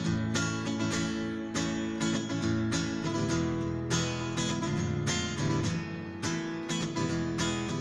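Acoustic guitar strummed in a steady rhythm of chords, an instrumental passage of a song with no singing.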